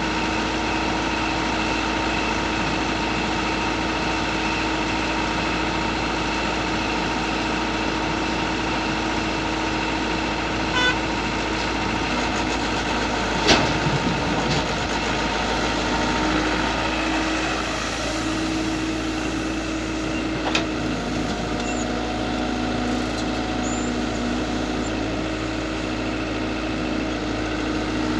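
IHI IS120GX excavator's diesel engine running steadily, with tones that shift a little in pitch about halfway through. A few sharp knocks cut through it, the loudest about halfway in.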